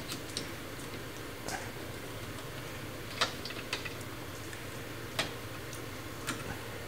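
Hands working a rubber seal and ribbed plastic wiring conduit into place on a car's trunk lid: scattered small clicks and ticks, the sharpest about three and five seconds in, over a steady low hum.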